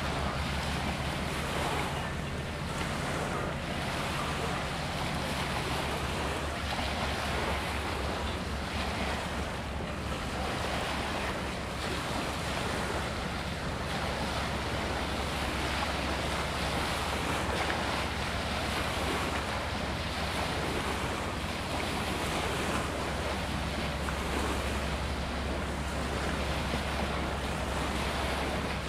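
Small waves washing against a rocky shore and wind on the microphone, over a low steady drone.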